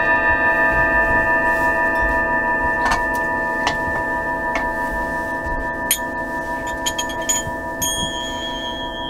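A set of Tibetan singing bowls struck one after another with a mallet: many overlapping ringing tones hang on and slowly fade, and about half a dozen fresh strikes each add a new, mostly higher note. The lower tones wobble as they ring.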